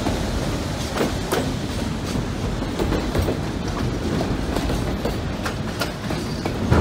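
Freight train of autorack cars rolling past close by: a steady rumble of steel wheels on the rails, with sharp clacks from the wheels every second or so.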